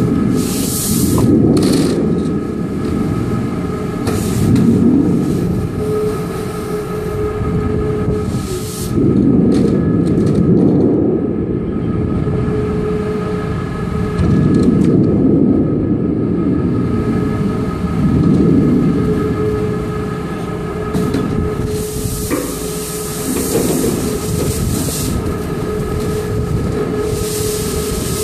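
Steel coil cut-to-length line running: the leveling machine's electric motor gives a steady hum while the steel strip feeds off the coil through the rollers. Under the hum is a low rumble that swells about every four to five seconds.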